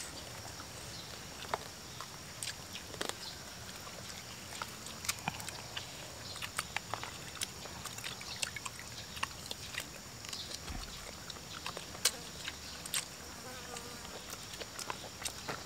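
Eating by hand: many short wet clicks and smacks of chewing and lips. Behind them runs a steady high drone of insects.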